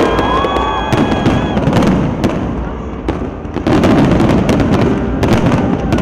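Fireworks display: a rapid run of sharp bangs and crackles over a continuous rumble of bursts, with a brief steady high tone in the first second or so.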